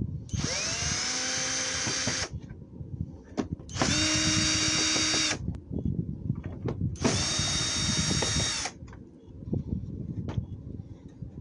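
Cordless Mosta drill-driver backing screws out of a robot vacuum's plastic base: three runs of about one and a half to two seconds each, the motor whine rising in pitch as it first spins up. Small clicks and knocks of handling fall in between.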